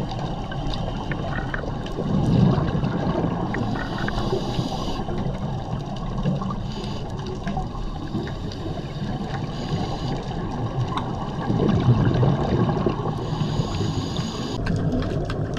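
Underwater bubbling and gurgling from a scuba diver's exhaled air, swelling about two seconds in and again around twelve seconds.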